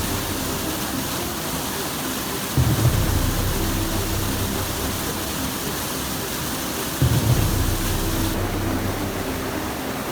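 Steady rain-like hiss under a low, layered drone that swells about every four and a half seconds, twice here: a dark ambient horror soundtrack.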